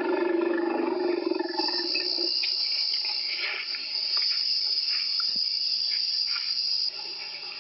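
An animal's drawn-out pitched call for about the first two seconds, then a steady high shrill chirring that stops suddenly about seven seconds in.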